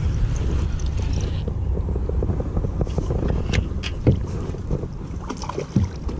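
Wind rumbling on the microphone in a kayak, with a few sharp knocks and clicks in the second half, the loudest about four seconds in.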